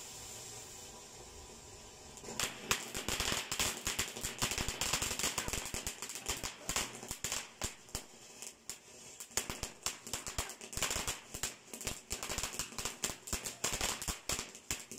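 Ground fountain firework hissing, then about two seconds in breaking into rapid, dense crackling pops as it sprays sparks.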